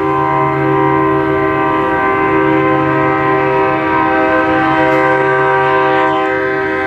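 A semi truck's train-style air horn held in one long, loud, steady blast, several notes sounding together.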